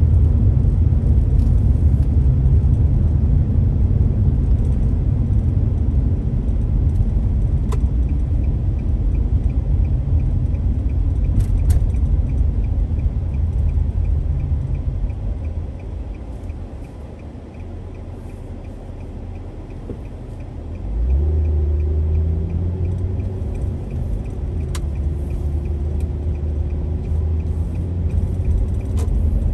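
Car driving noise: a steady low rumble of engine and tyres that dies down as the car slows to a stop at a traffic light. About two-thirds of the way in, it comes back suddenly as the car pulls away, with a louder engine drone. A faint, even ticking, about two a second, runs through the middle.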